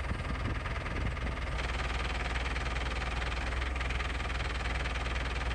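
Engine of a yellow lifting machine running steadily under load while it hoists an FV432's power pack out of the hull on a chain; the engine sound fills out slightly about a second and a half in.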